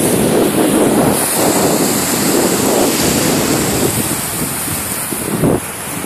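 Wind buffeting the phone's microphone over small waves breaking and washing up the beach.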